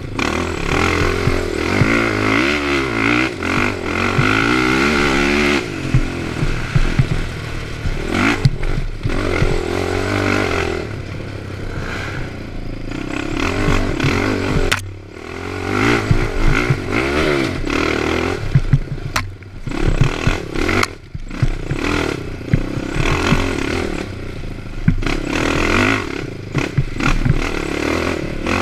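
Honda TRX450ER quad's single-cylinder four-stroke engine revving up and down again and again as it is ridden hard over a rough trail, the throttle chopped briefly several times, with rattles and knocks from the chassis over bumps.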